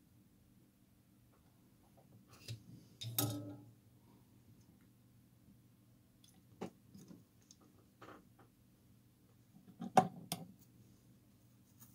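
A few scattered light clicks and knocks of small hard objects being handled, the loudest about three seconds in and about ten seconds in, over a steady low hum.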